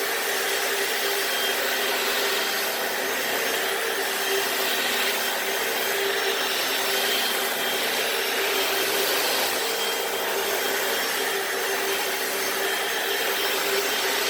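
Hoover FloorMate wet floor cleaner running steadily, its suction motor humming and its brush scrubbing a garage floor.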